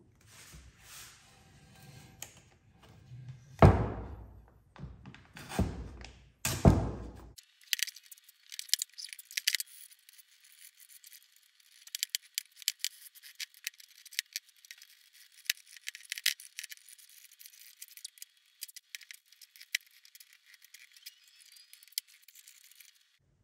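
Green painter's tape being pulled off the roll and laid onto an aluminium oil pan: three loud rips in the first seven seconds among softer handling knocks, then a long run of thin crackling and clicking as pieces are torn and pressed down.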